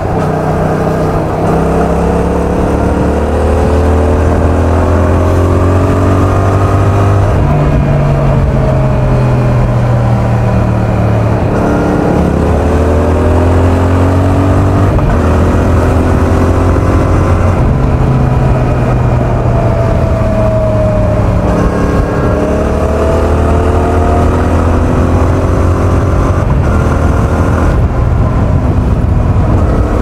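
Yamaha XSR700's 689 cc parallel-twin engine and exhaust under way, its note rising and falling in pitch several times with the throttle, picked up from a mic in the rider's back pocket.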